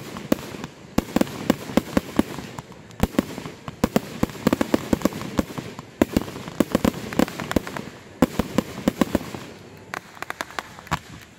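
Aerial fireworks firing in rapid volleys: quick series of sharp pops and bursting cracks in several clusters, thinning out near the end.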